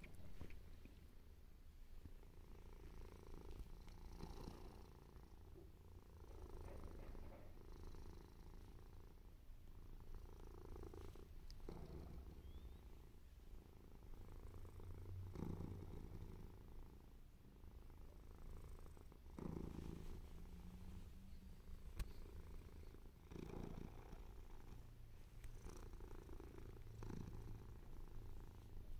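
Domestic cat purring softly and steadily, close by, the purr swelling and easing every few seconds with its breathing. The cat is content and relaxed.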